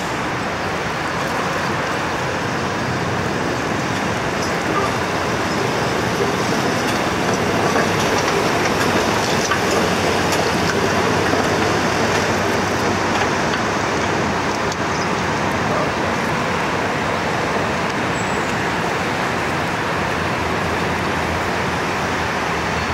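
Steady city street traffic noise with no single event standing out.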